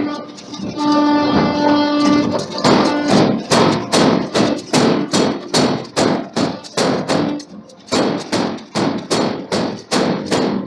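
Background music with a plucked guitar. From about two and a half seconds in, a steady run of heavy hammer strikes comes in, about two a second, each ringing briefly: hammer blows forging a steel billet.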